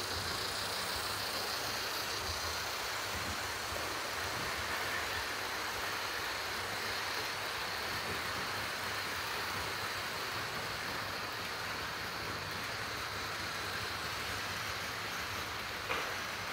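Model train running past, a diesel locomotive hauling a long rake of tank and cement wagons: a steady whir and rolling of small wheels on sectional track laid on a bare wooden floor. A small click near the end.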